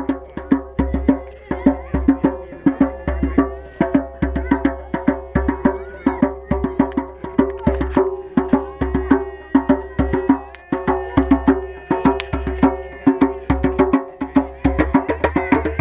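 Music with a quick, steady wooden percussion beat over sustained tones.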